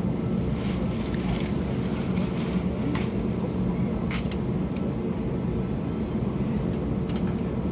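Steady low hum of an Airbus A321neo's Pratt & Whitney PW1100G geared turbofans idling, heard inside the cabin, with a few faint clicks.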